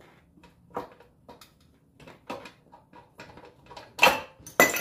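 Scattered metal clicks and knocks as the crankcase cover of a Predator 212 small engine is worked and pried loose with tools, ending in two loud knocks near the end.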